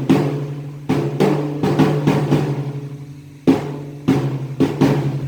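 A drum beaten by hand in uneven strokes, some in quick pairs and some after a pause of a second or more. Each hit is sharp and then rings on with a low, fading tone.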